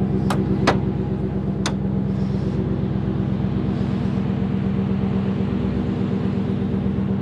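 Ford F-150's engine idling steadily through a Flowmaster aftermarket exhaust. Three sharp metallic clicks in the first two seconds come from the fold-out tailgate step being handled.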